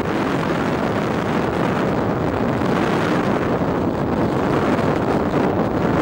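Freefall airflow rushing over a camera microphone, giving steady, loud wind noise with no break.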